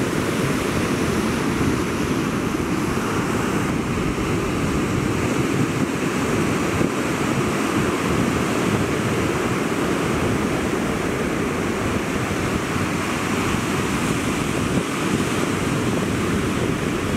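Ocean surf breaking and washing up the beach in a steady rush, with wind on the microphone.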